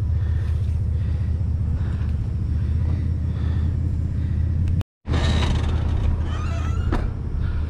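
A vehicle engine idling with a steady low rumble. The sound cuts out for a moment about five seconds in, and a light knock or two follow.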